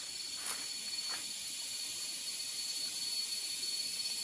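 Steady high-pitched drone of insects in the forest, with a thin ringing tone held through it, and a couple of faint rustles in the first second or so.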